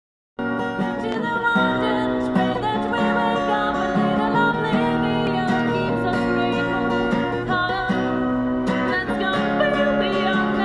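Acoustic guitar strummed while a woman sings, through a microphone and small street amplifier. The music cuts in abruptly about half a second in.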